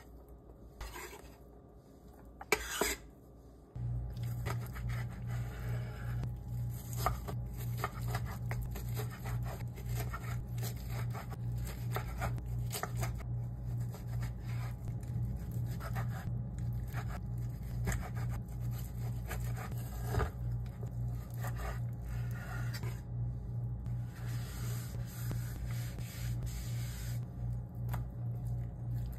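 Chef's knife scraping and cutting on a wooden cutting board: first scraping sliced sausage rounds across the board, then slicing through raw pork belly in a run of short, irregular strokes. A steady low hum with a pulsing beat comes in abruptly about four seconds in and runs underneath.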